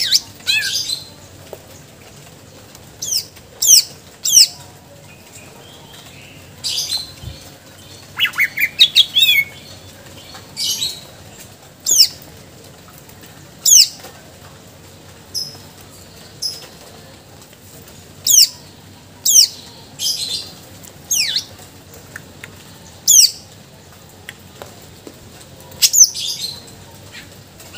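Greater green leafbird (cucak ijo) singing: loud, sharp whistled notes that each drop quickly in pitch, repeated every second or two, with a quick run of several notes about eight seconds in.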